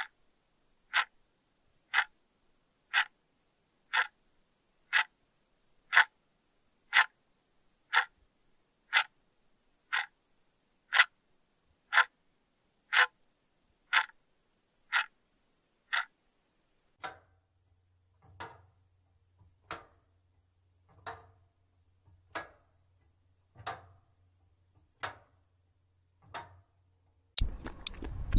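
A clock ticking steadily, exactly once a second. After about 17 seconds the ticks turn fainter and slower, about one every 1.3 seconds, over a low hum. Just before the end, a sudden rush of noise with quick taps: running footsteps on a road.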